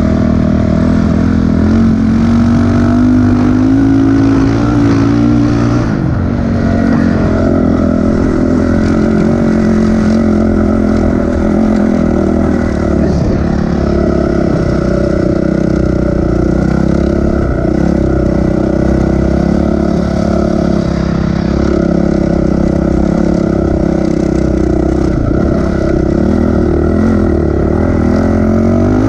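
Dirt bike engine running under throttle while riding, its revs climbing for a few seconds, dropping about six seconds in, then rising and falling with the throttle.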